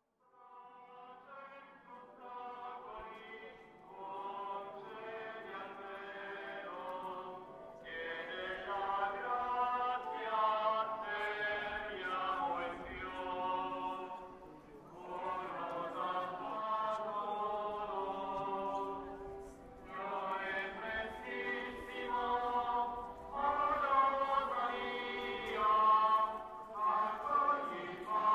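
Choir chanting: several voices singing slow, held notes in phrases. It fades in from silence, grows louder, and pauses briefly between phrases.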